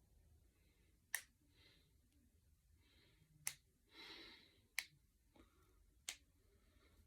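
Finger knuckles cracking: four sharp single pops, spaced about one to two seconds apart, with a short breathy exhale between the second and third.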